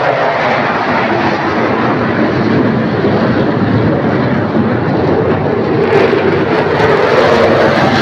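Military fighter jets flying over in formation: a loud, steady roar with slow sweeps in pitch as the aircraft pass.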